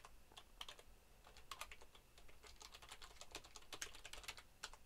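Faint typing on a computer keyboard: a run of irregular key clicks.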